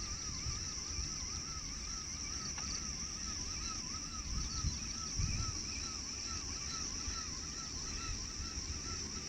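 A bird call: a short arched note repeated evenly about three times a second, over a steady high-pitched hiss, with a few low thumps near the middle.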